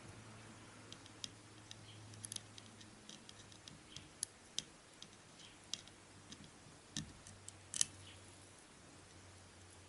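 Faint, irregular small clicks and taps from handling a tweezer-like tool and rigging thread on a wooden model ship, the sharpest about eight seconds in, over a low steady hum.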